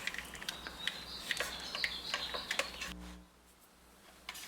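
A string of light, irregular clicks and ticks from small parts being handled, broken off by a second of near silence about three seconds in, with a few more clicks near the end.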